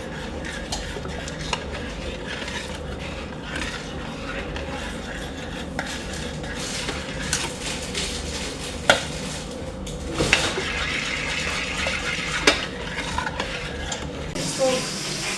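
A spoon stirring in a cooking pot, with sharp clinks against the pot now and then, the loudest about two-thirds of the way through, over a steady low hum.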